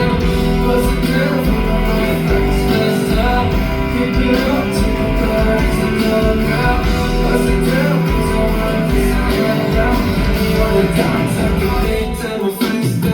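Amplified song played live: guitar-led pop-rock music with singing, loud and steady, dipping briefly near the end.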